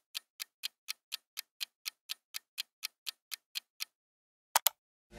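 Countdown-timer clock ticking sound effect, about four even ticks a second, stopping just before four seconds in. Two quick, louder clicks follow near the end.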